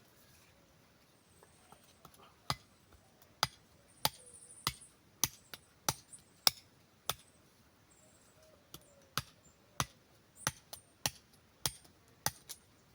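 A knife chopping into split sticks to cut notches in their ends: two runs of sharp wooden knocks, about two a second, with a short pause near the middle.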